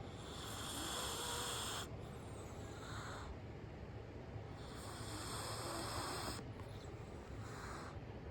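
Heavy snoring in a slow, even rhythm: twice a long hissing breath of about a second and a half, each followed after a pause by a shorter hissing breath.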